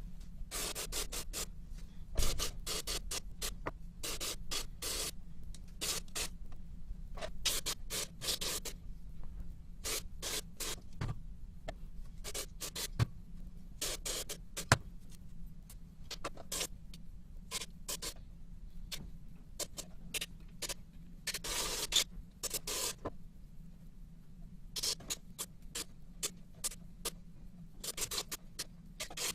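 Chainsaw carburetor parts being cleaned by hand: irregular short bursts of hissing, scrubbing noise, some clustered quickly and some about a second long, over a faint steady low hum.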